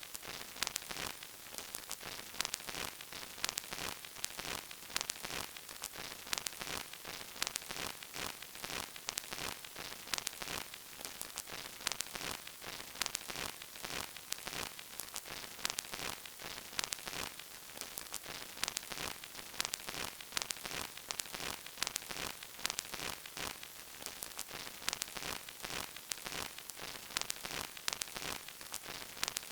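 Surface noise of an old vinyl record: a steady soft hiss with dense, irregular crackles and pops.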